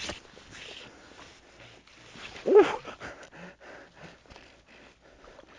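A hooked sea trout splashing at the surface while being played on a fly rod, heard as many small irregular splashes and ticks. About two and a half seconds in, one short loud cry that rises and falls in pitch, an exclamation from the angler.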